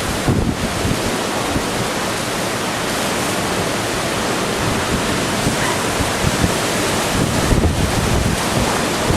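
Heavy tropical rainstorm: a steady, loud hiss of rain with wind buffeting the microphone in gusts, strongest just after the start and again near the end.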